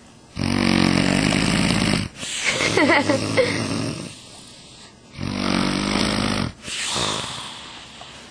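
A woman snoring in her sleep: two rounds, each a loud buzzing snore about a second and a half long followed by a noisy breath; the first of these breaths wavers up and down in pitch.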